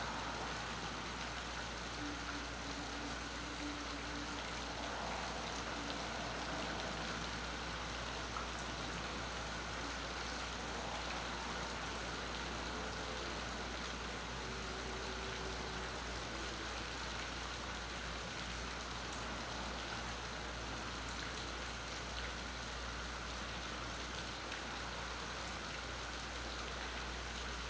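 Steady rain falling on a marina's water, docks and moored boats, picked up by a phone's onboard microphone.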